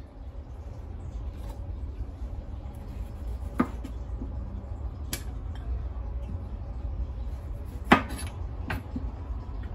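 Kitchen knife slicing tomatoes on a plastic cutting board, the blade knocking sharply on the board four times, loudest near the end, over a low steady rumble.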